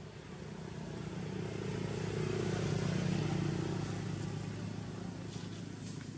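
A motor vehicle passing by, its engine hum and tyre noise swelling to a peak about halfway through and then fading.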